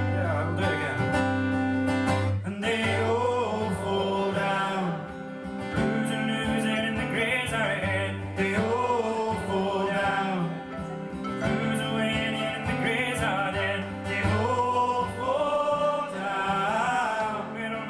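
Steel-string acoustic guitar strummed in a steady folk accompaniment, with a man's voice singing over it from about two and a half seconds in.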